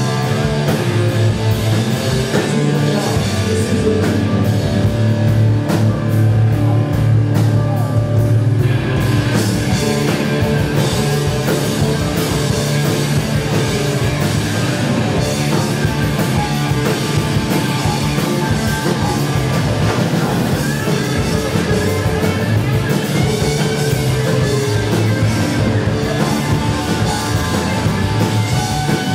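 Live rock band playing through a PA: electric guitars, bass guitar, drum kit and keyboard in a mostly instrumental stretch. About nine seconds in, the cymbals and upper range fill in and the band plays fuller.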